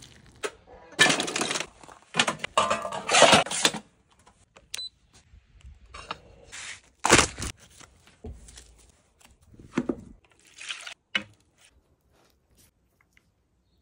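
Handling noises from food preparation and grilling: short scrapes, clatters and clinks. The loudest are a run of noisy scraping bursts in the first few seconds and one sharp burst about seven seconds in.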